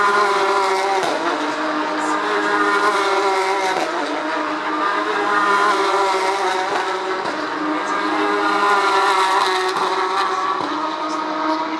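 Several Porsche 911 GT3 Cup race cars with flat-six engines running on track at once, their engine notes overlapping and rising and falling in pitch as they accelerate and brake.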